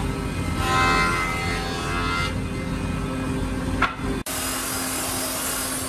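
Woodworking power tools running steadily in a workshop, with a whining hum. About four seconds in the sound cuts abruptly to a harsher, hissing machine noise.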